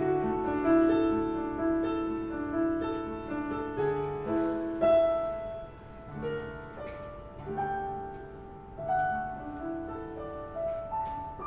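Piano music: an instrumental passage of a melody over held chords, notes changing every half second to a second.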